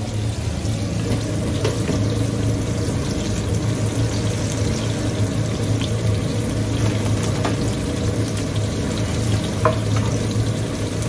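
Steady sizzling of sliced onions, peppers and tomatoes frying in a pan on a gas hob, over a low steady hum, with a sharp clink near the end.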